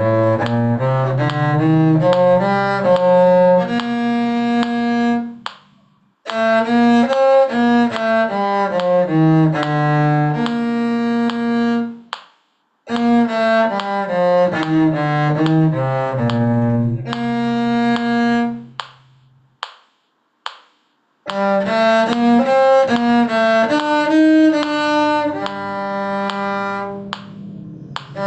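Cello playing a brisk bowed melody in four short phrases, each a run of separate notes and each ending on a held note, with brief pauses between them.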